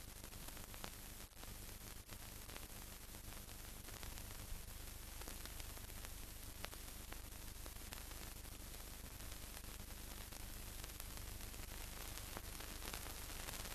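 Steady hiss with scattered faint clicks and a low hum: the noise floor of a silent film transfer, with no sound of the helicopter itself.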